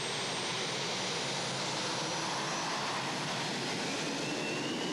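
Two Rolls-Royce Gnome turboshaft engines of a pulling tractor running at full power under load: a dense rushing noise with a high turbine whine that climbs slowly in pitch.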